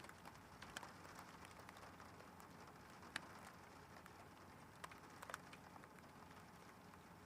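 Faint rain pattering, with irregular drips ticking on a hard surface; the sharpest tick comes about three seconds in and a few more around five seconds.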